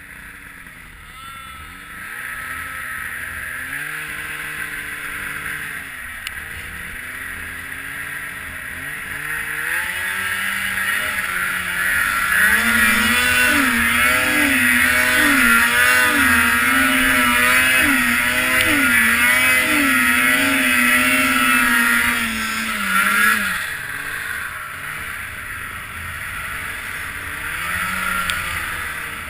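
Snowmobile engine revving hard through deep powder, its pitch climbing and dropping as the throttle is worked. It gets louder partway through, with a run of quick rev swings in the middle, then eases off near the end.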